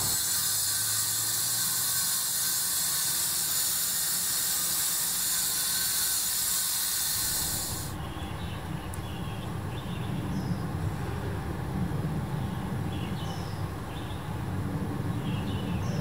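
A loud steady hiss with a low engine hum from a portable engine-driven sprayer, which cuts off suddenly about halfway through. After it there is a low rumble of traffic and a few short, high chirps.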